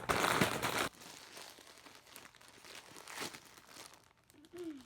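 Plastic snack wrapper of rice crackers crinkling and rustling as it is handled and opened, loudest in the first second, then lighter scattered crinkles.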